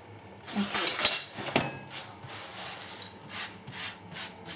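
Dry tamarind pod shells crackling and rustling as they are peeled off by hand. A dense burst of crackling comes about a second in, then several shorter scratchy rustles.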